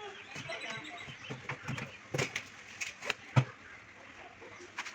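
Scattered handling knocks and clicks as the front grille is pried off a Peavey stage monitor speaker cabinet, with one louder thump about three and a half seconds in.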